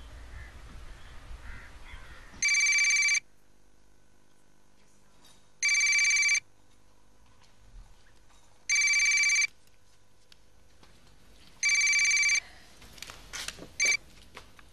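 Telephone ringing: four rings of under a second each, about three seconds apart. Near the end come a few clicks and a short cut-off ring as the handset is picked up.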